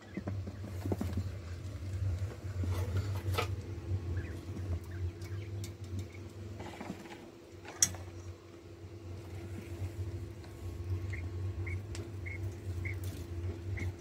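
Quail in a wire cage scratching and pecking, giving light pattering and scattered sharp taps, with a run of short, evenly spaced high peeps near the end. A steady low hum runs underneath.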